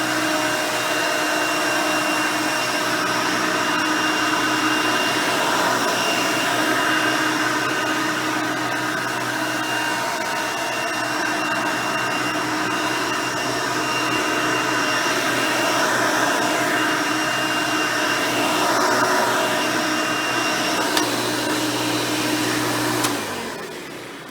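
Hoover Elite 350 upright vacuum, with its 5-amp motor and original 9-blade fan, running steadily over carpet. It is switched off about 23 seconds in, with a click, and the motor winds down and fades.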